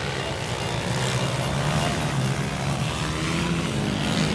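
Motocross bike engines running on the dirt track, a continuous drone that shifts a little in pitch as the riders work the throttle.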